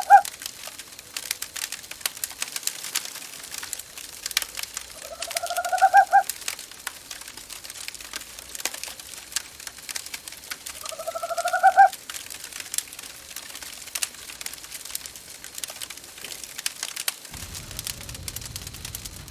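Wood fire crackling steadily in a fireplace while an owl gives three rising hoots, about six seconds apart, each lasting about a second and a half. A low rumble joins in near the end.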